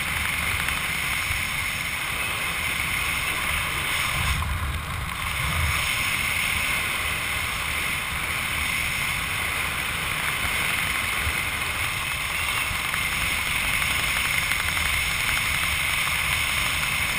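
Steady wind rushing over a body-mounted camera's microphone during a parachute descent, with low buffeting rumble and a brief change in the rush about four to five seconds in.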